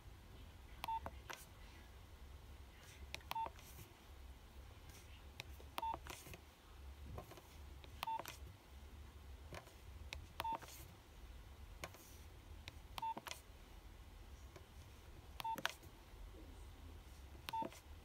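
Nokia 2300 keypad beeping and clicking as its keys are pressed to scroll through menu items. Eight short single-pitch beeps, about one every two and a half seconds, each with a small key click.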